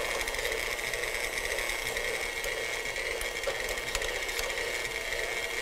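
Electric stand mixer running at a steady speed, beating a cheesecake filling: a constant motor hum.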